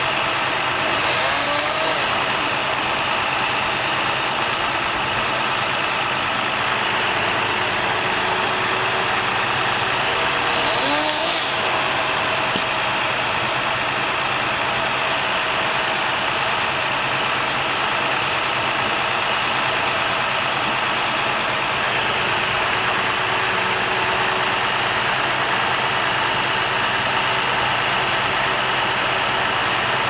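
Bucket truck's engine running steadily at idle, with a couple of short sliding squeaks about a second in and again around eleven seconds.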